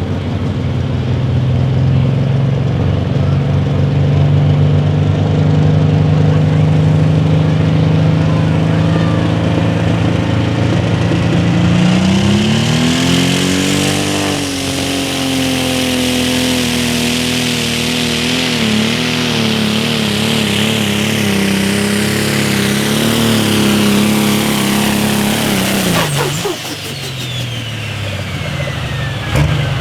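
Pro Stock pulling tractor's turbocharged diesel running hard on a pull. The engine note climbs about twelve seconds in, a turbo whine rises above it, and the pitch wavers under load. Near the end the throttle is pulled back: the engine drops off suddenly and the turbo whistle falls away as it spools down, the turbo flutter heard at the end of a pass.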